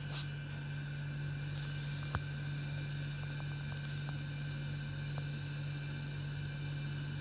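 A steady low hum with a few faint clicks over it; one sharper click comes a little over two seconds in.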